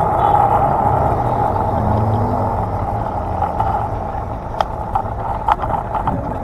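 Steady rushing road and wind noise of a small vehicle riding through city traffic, with a low rumble underneath. A few sharp knocks come in the second half.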